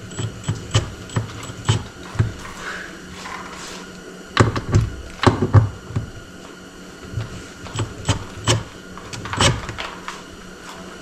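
Scattered knocks and clicks of hardware and tools being handled against a wooden board, irregular and uneven, the loudest cluster about halfway through.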